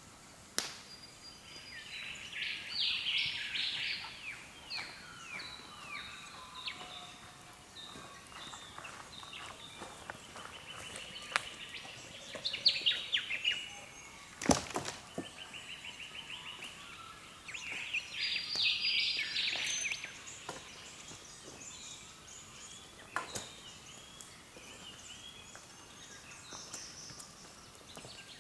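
Several wild birds calling in the early-morning chorus, with clusters of loud, quick descending notes a few seconds in and again about two-thirds through, and a fast even rattle of notes near the middle. A few sharp knocks stand out, the loudest about halfway through.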